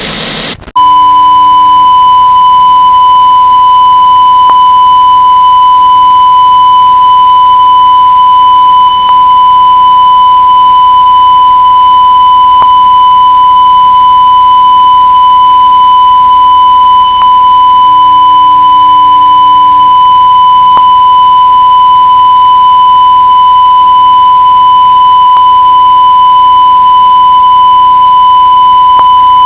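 A single loud, steady electronic tone held unbroken at one high pitch, starting just under a second in: a broadcast test tone.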